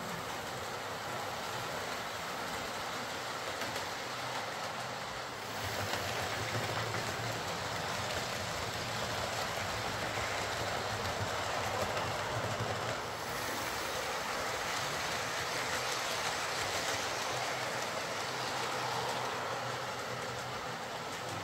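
Hornby Class 43 HST OO gauge model running along the layout track: a steady whir from its ringfield motor and wheels on the rails, louder from about five seconds in. The locomotive is running again after its repair.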